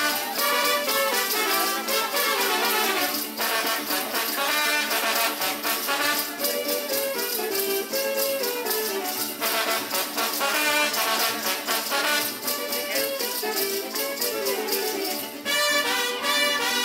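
Brass band playing dance music, with rhythmic jingling of the dancers' leg bells keeping the beat.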